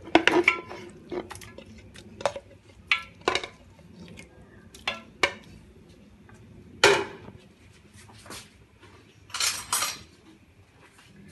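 Raw mutton pieces being pushed off a ceramic plate into a metal pressure cooker: irregular clinks and knocks of plate against pot, about a dozen in all, the loudest about seven seconds in.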